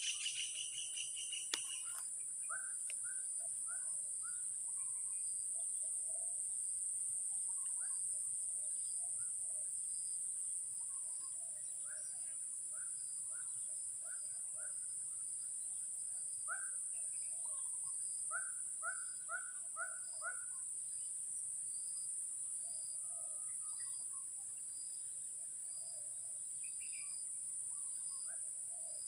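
A steady high-pitched insect drone, crickets or cicadas, with short chirping calls scattered through it, including a quick run of about five calls.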